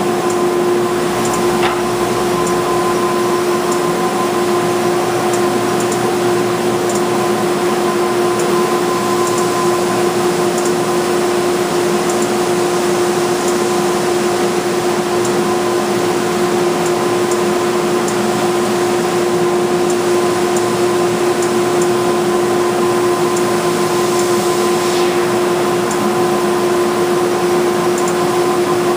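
Wide belt sander running steadily: a constant machine drone with a fixed hum.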